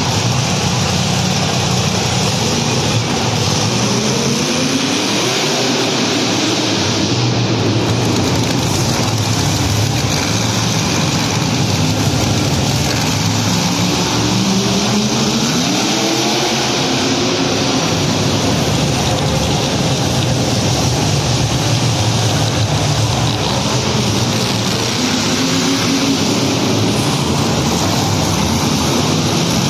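Monster truck engines running and revving, their pitch rising and falling in several sweeps, about four seconds in, around fifteen seconds in and again near the end.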